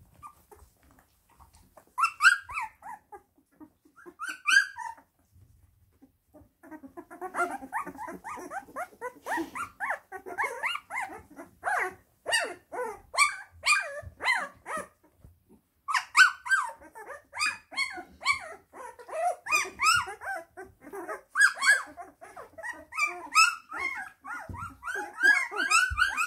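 Two-week-old flat-coated retriever puppies squeaking and whining, many short high calls overlapping. Two brief bursts of cries come in the first five seconds, then from about seven seconds in the calls run on almost without a break.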